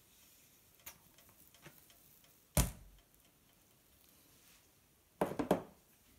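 A single sharp knock about two and a half seconds in as a plastic squeeze bottle is set down on the table, then a quick cluster of three or four clattering knocks near the end as a spatula is laid down; a few faint clicks before.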